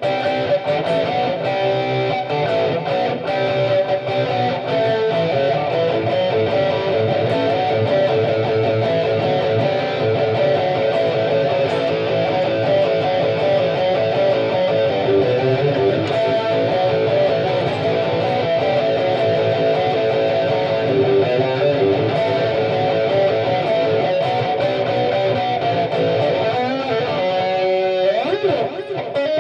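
Homemade Flying V electric guitar with humbucking pickups, played plugged in through an amplifier: a continuous riff of sustained chords and notes, easing off briefly near the end.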